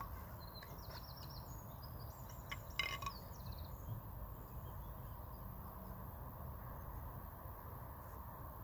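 A bird chirping in short, rapid high phrases for the first few seconds over a steady low rumble of background noise. A single sharp click near the three-second mark.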